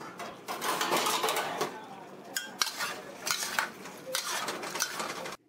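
A metal utensil scraping and clattering against a wok in irregular strokes while prawns in a thickened sauce are stir-fried. The sound cuts off abruptly near the end.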